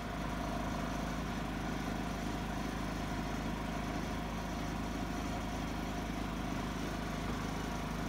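Predator 3500 inverter generator's small gasoline engine running steadily at an even pitch.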